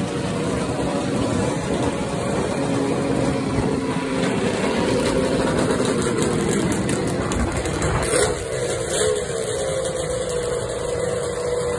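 Two-stroke motorcycle engines running and revving, the pitch rising and falling, with a sharp pop about eight seconds in.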